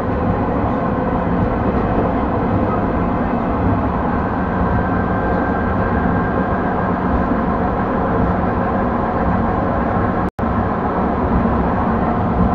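EP2D electric multiple unit running along the line: a steady, loud rumble of wheels on rails with the even hum of its drive, and a split-second dropout in the sound about ten seconds in.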